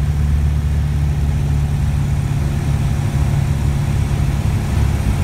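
Light aircraft's engine running steadily, heard from inside the cabin as a constant low drone.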